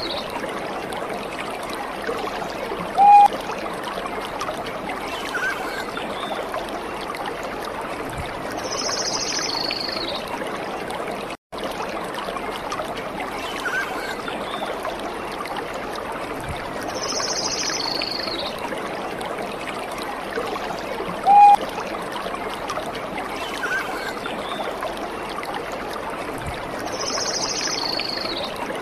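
Steady running water of a small stream, with a few short high chirps and, twice, a brief louder tone. The same stretch of sound loops about every 18 seconds, with a short dropout at the loop point.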